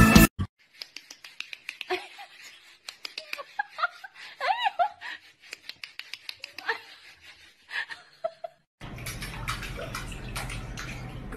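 A run of light clicks and taps with a few short, high, rising-and-falling squeaks. About nine seconds in, water starts running and splashing steadily in a steel kitchen sink as a cat paws at it.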